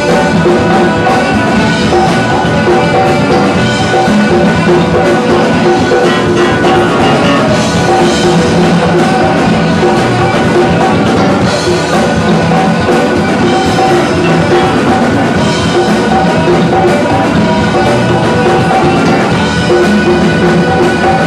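Live band playing an instrumental passage with drum kit, congas, electric guitars and saxophone, loud and continuous with no singing.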